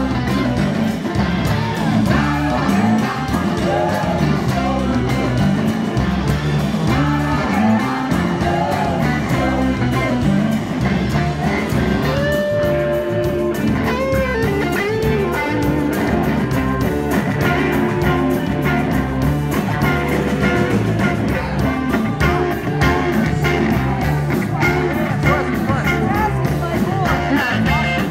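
Live rock band playing, with electric guitar to the fore over drums and bass, and a voice singing. The guitar holds and bends long notes about halfway through.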